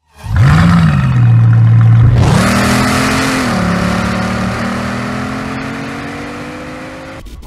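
Bugatti Chiron's quad-turbocharged 8.0-litre W16 engine flares up and settles, then launches about two seconds in and accelerates hard through two upshifts. Its note climbs and fades steadily as the car pulls away.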